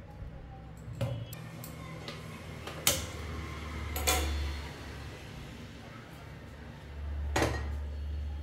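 Kitchenware being handled: four sharp clinks and knocks spread out, the loudest about three seconds in, over a low steady hum.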